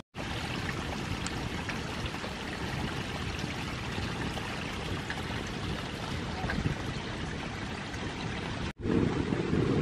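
Water from a small forest spring trickling and splashing over stones, a steady even wash. Near the end it cuts sharply to a louder, low rumbling sound.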